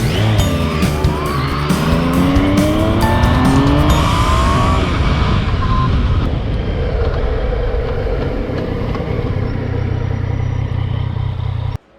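Yamaha MT-09's three-cylinder engine on the move, rising in pitch through the first few seconds, then running steadily, with background music over it. The sound cuts off abruptly just before the end.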